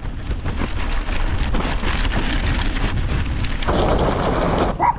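Wind buffeting the microphone over the crackle and rattle of bicycle tyres rolling fast over loose gravel and rocks. About a second before the end, the sound switches to a denser steady hiss of tyres on dirt.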